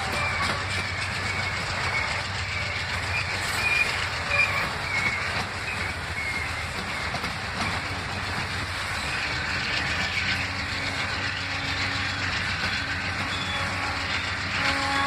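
Freight train of autorack cars rolling past at close range, steel wheels clattering over the rail joints. A wavering high squeal sounds in the first few seconds.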